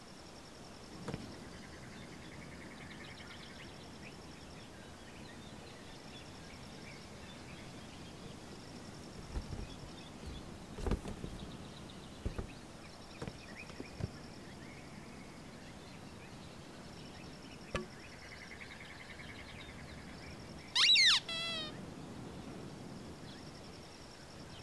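Quiet outdoor ambience of birds chirping and trilling, with a few soft taps and rustles as a small cardboard box is handled and opened. Near the end there is one loud bird call, a quick series of falling notes.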